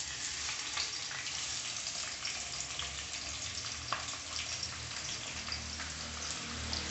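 Sliced onions sizzling as they go into hot oil in a kadai: a steady frying hiss with a few light clicks.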